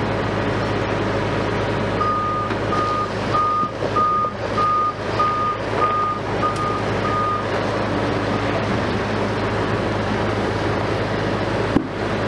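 A heavy vehicle's engine running steadily, with a reversing alarm beeping nine times, about 0.6 s apart, from about two seconds in until past seven seconds. A single short knock comes near the end.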